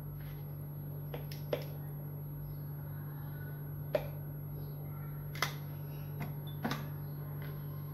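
A steady low hum with about half a dozen light clicks and taps spread through, small handling sounds of steel bowls and utensils on a kitchen counter.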